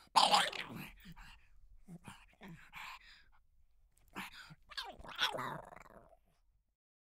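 Young puppy barking: a loud bark right at the start, quieter yaps about two to three seconds in, then a few more barks from about four seconds in, the last one longer.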